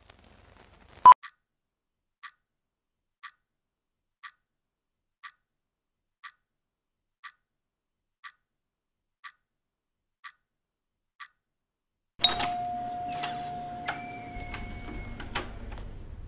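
A single short beep from a countdown leader, then a clock ticking once a second, about ten ticks. Near the end a sudden struck, ringing tone sets in and rings on, gong-like.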